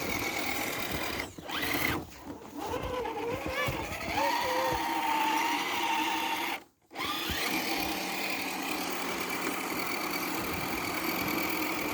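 Electric motors and geared drivetrains of RC crawler trucks whining, the pitch rising and falling with the throttle. The sound drops out for a moment about two-thirds of the way through.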